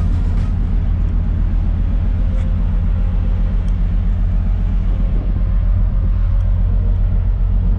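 Deep, steady rumble of marine diesel engines from the harbour tugs working the ship in to its berth.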